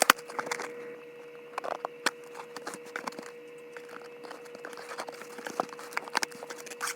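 Toy packaging being opened and handled: scattered clicks and crinkles of plastic and cardboard, with a faint steady hum underneath.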